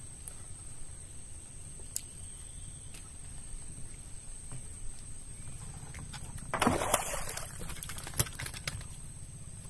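A hooked fish splashing at the surface for about a second as it is hauled up to the boat on a handline, followed by a single sharp knock. A few faint clicks and a low steady rumble lie under it.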